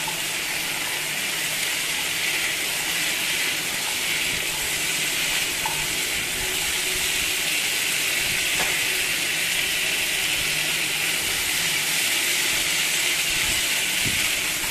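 Potato pieces with onion and tomato sizzling steadily in hot oil in a kadai while being stirred with a silicone spatula, with a couple of faint clicks along the way.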